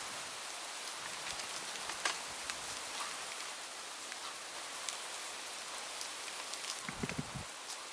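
Steady rain with scattered individual drops ticking. A brief low thump comes about seven seconds in.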